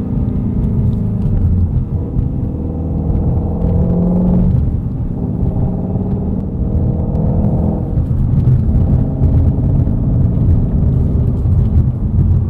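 Ford Mustang Shelby GT350's 5.2-litre flat-plane-crank V8 running under way, heard from inside the cabin. The engine note climbs gently, falls away about four and a half seconds in, then changes again about eight seconds in into a rougher, louder rumble.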